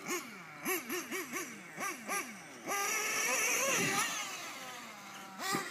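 R/C car motor revved in a series of quick throttle blips, each a short rise and fall in pitch. Then it is held at full throttle for over a second as the car takes the jump, and the pitch winds down slowly before one more sharp rev near the end.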